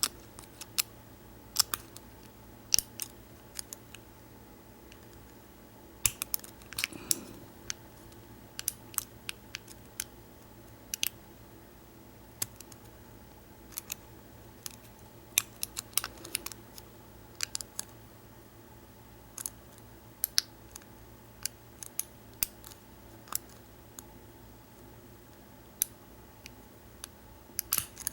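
Picking an American 1100-series padlock: a pick and tension wrench working its serrated pin tumblers, giving small irregular metallic clicks, single and in quick clusters, as pins ride over their serrations and set.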